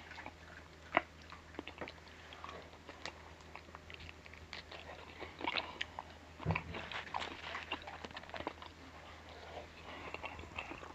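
A person chewing food close to the microphone: soft, scattered smacking and crunching clicks, with one sharper click about a second in.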